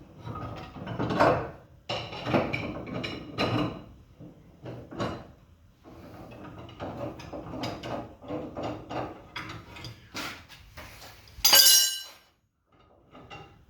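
Clicks, knocks and scrapes of metal tools working on a prototype coil-spring compressor, with one loud ringing metal clang about three-quarters of the way through, after which the sound cuts off.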